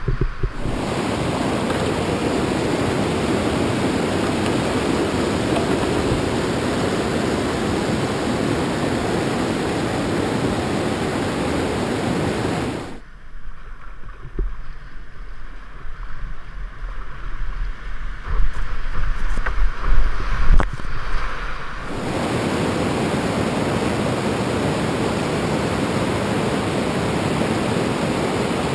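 Whitewater of a river rapid rushing in a steady, loud roar. About 13 s in it turns muffled for roughly nine seconds, with irregular splashes and knocks, before the steady rush of the rapids returns.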